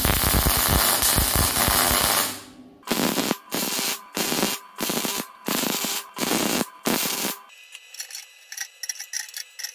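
Electric arc welding on steel flat bar: a crackling arc held for about two and a half seconds, then six short tack welds in quick succession, tacking a flange in place. Faint background music takes over near the end.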